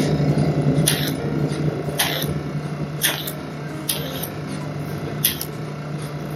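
HydraFacial machine running with a steady low hum, its handheld suction wand hissing in short bursts about once a second as the tip works over the skin of the chin.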